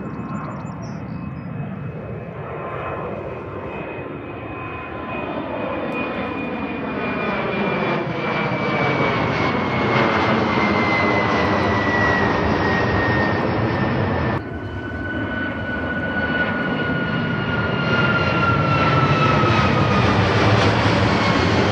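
Jet airliner engines passing low overhead: a loud rumble with a high whine that slowly falls in pitch as the noise builds. About 14 seconds in it cuts abruptly to another jet passing, its whine also falling and the rumble growing louder toward the end.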